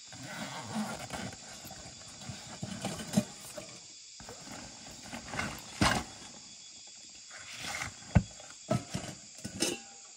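Rustling of a backpack being unpacked, then a few sharp knocks and clinks as a metal cooking pot is set down and its lid lifted off.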